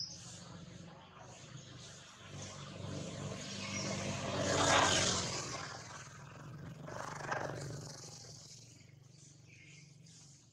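A motor vehicle passing: a broad engine-and-tyre noise that builds to its loudest about five seconds in and fades away, followed by a smaller swell a couple of seconds later.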